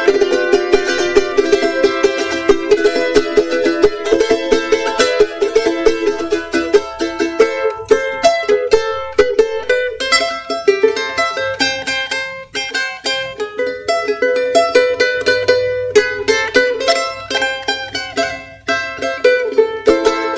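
Charango strummed fast, a run of quick strokes playing an instrumental introduction before the song's vocals, with two brief dips in the strumming.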